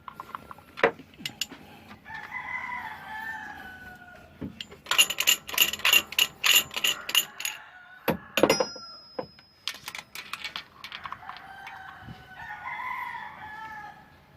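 A rooster crowing twice, each a drawn-out call falling in pitch, once a couple of seconds in and again near the end. Between the crows comes a rapid run of sharp clicks and taps, the loudest sound here.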